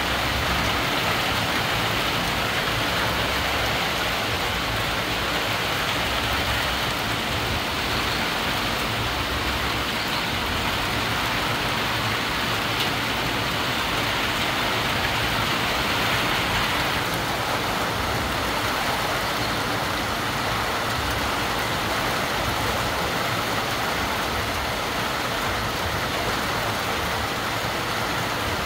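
Heavy rain falling steadily on palm fronds, foliage and rooftops, a dense even hiss that thins a little just past halfway.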